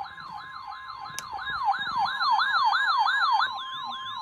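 Electronic warbling siren sweeping rapidly up and down, about four times a second, over a steady alert tone near 1 kHz, the kind of weather-radio alarm that marks a warning broadcast. The siren grows louder in the middle and eases back near the end.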